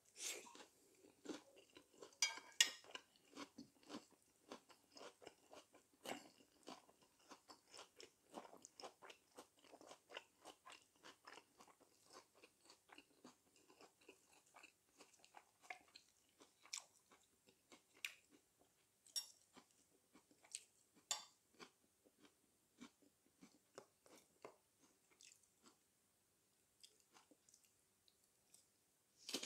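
Close, quiet mouth sounds of chewing and crunching lettuce wraps of spicy chicken: irregular wet crunches and clicks several times a second, the loudest bites near the start.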